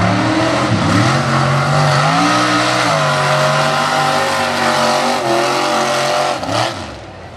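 Mega truck's engine revving hard through a mud pit, its pitch climbing in steps, holding high through the middle, then dropping away near the end, over the hiss of tires churning mud.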